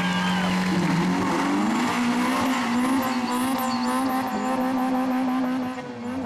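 Drag cars' engines held at high revs on the start line, then launching: the engine note climbs steeply about a second in and stays high as they accelerate away, with tyres spinning and squealing off the line. The sound drops away sharply near the end.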